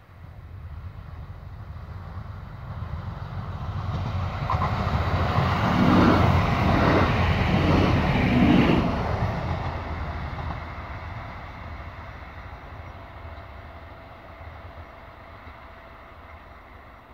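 Tper ATR 220 diesel multiple unit passing close by. Its engine rumble and wheel noise grow louder for several seconds, peak as it goes past, then fade steadily as it moves away.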